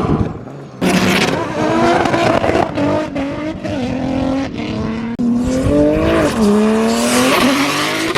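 Turbocharged S52 straight-six of a drifting BMW E30, the revs climbing and dropping again and again under throttle. Tire squeal builds in the last couple of seconds. The sound comes in abruptly about a second in and breaks off briefly around the middle.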